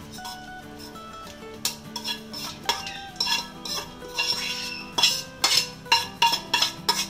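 A spatula scraping and tapping against the inside of a kadhai as fried chopped cashews and almonds are emptied onto a steel plate. There are repeated short clinks and knocks, few at first and coming thick and fast in the second half.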